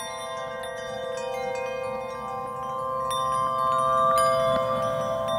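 Chimes ringing: many bell-like notes struck and left to ring over one another, with bright tinkling on top. The sound grows louder about three seconds in.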